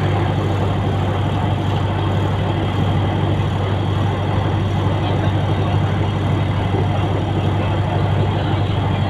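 Steady rumble of a passenger train coach in motion, heard from inside, with a constant low hum underneath.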